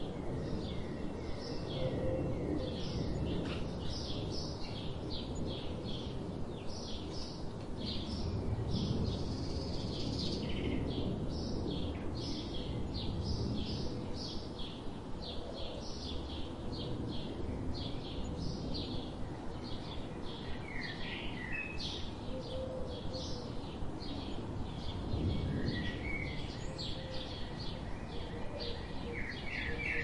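Birds chirping: a steady run of short, high chirps, about two a second, over a continuous low background rumble. A few lower, sliding calls come in during the last third.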